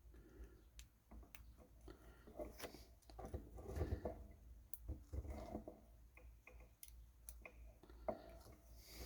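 Scattered light clicks with some rustling, loudest about four seconds in: small electronic parts, ceramic capacitors for a kit, being handled.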